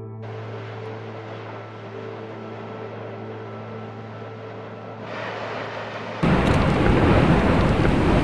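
Volcanic eruption footage sound: a steady low hum with faint rushing, then about six seconds in a loud rushing rumble sets in, with wind on the microphone.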